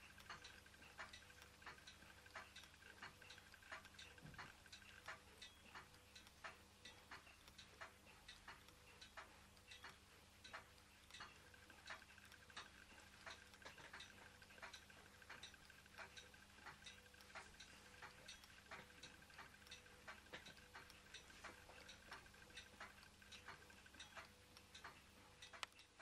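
Ross yoke low-temperature Stirling engine running very slowly, its linkage giving faint, regular light clicks, roughly two a second.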